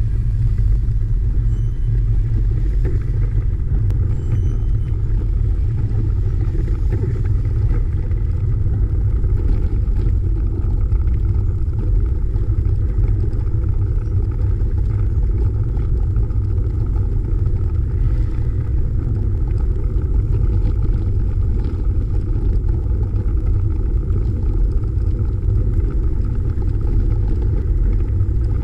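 Wind rushing over the microphone of a camera on a moving bicycle: a loud, steady low rumble without breaks or swells.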